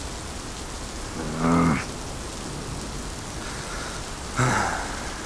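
Heavy rain falling steadily. Two short low voice-like sounds rise above it, one about a second and a half in and a breathier one near the end.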